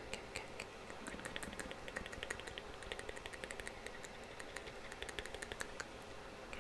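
Fast, irregular light clicks and taps, several a second, over a faint steady hiss.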